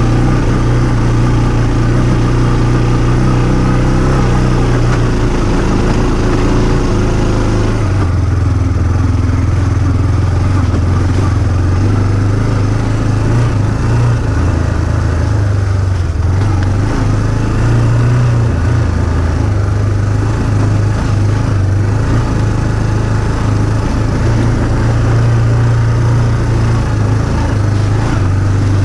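A vehicle engine running continuously close to the microphone, its pitch stepping up and down as the throttle changes.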